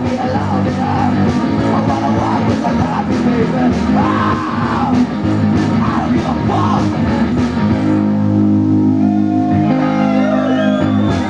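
Live garage rock band playing: electric guitars and singing over a steady beat. About eight seconds in the beat stops and a chord is left ringing as the song winds down.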